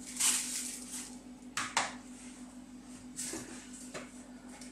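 A few brief scrapes and crinkles, about three, from a teaspoon and hand working on aluminium foil as minced ginger is added to a whole fish. A faint steady low hum runs underneath.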